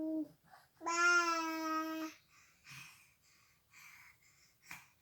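A baby's voice holding a long, steady "aaah" at one pitch. It ends just after the start and comes again for about a second, followed by soft, noisy breathing.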